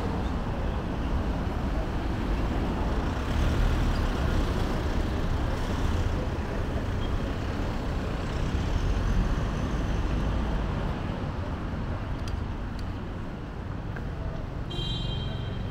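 Road traffic: a steady, low rumble of passing vehicles that swells a little as they go by. Near the end comes a brief high-pitched tone.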